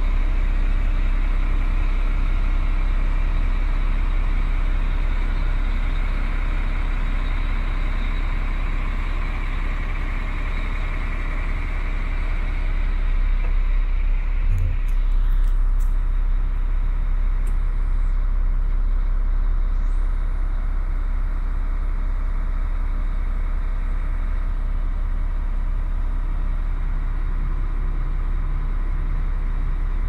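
DAF CF75.310's 310 hp turbocharged six-cylinder diesel idling steadily, heard from inside the cab. A higher hiss over it stops about halfway through, just after a few light clicks.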